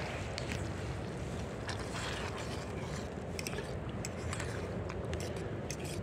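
Wood fire burning in a small folding wood stove: a steady rushing noise dotted with scattered crackles and ticks.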